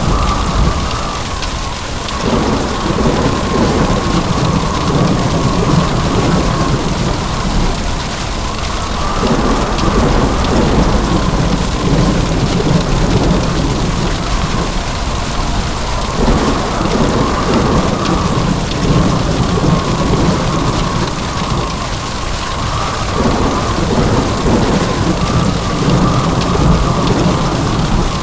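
Heavy rain pouring steadily with low rumbling thunder, the storm sound repeating in the same pattern about every seven seconds.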